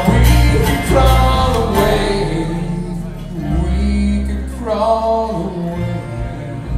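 Live bluegrass string band of banjo, acoustic guitar, mandolin and upright bass playing the closing bars of a song. Quick plucked picking for the first couple of seconds gives way to held notes over a deep ringing bass.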